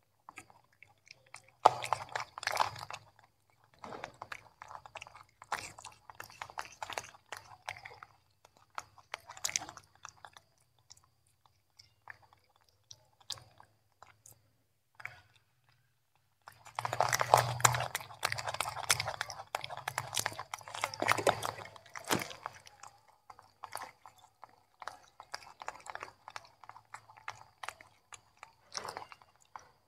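Young monkeys chewing and crunching broccoli and carrot pieces: irregular crackly bites in scattered bouts, with a busy stretch of chewing a little past halfway.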